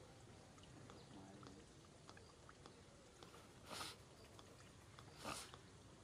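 Faint, soft mouth clicks of a macaque chewing, with two brief rustling hisses about four and five seconds in.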